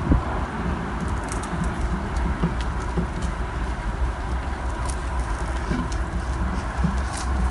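Claws of five-week-old Airedale Terrier puppies ticking and pattering irregularly on concrete paving, over a steady low rumble.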